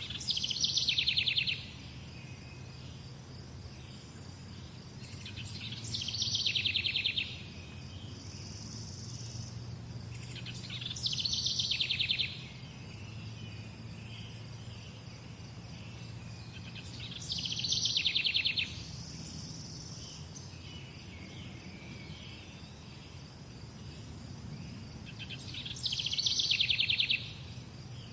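A songbird repeats the same short trill five times, a quick run of notes falling in pitch, roughly every five to six seconds, over a steady low rumble.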